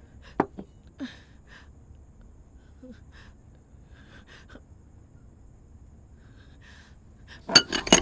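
Soft clinks of cutlery on a dinner plate with quiet breathing, then a quick run of sharper, louder clinks near the end.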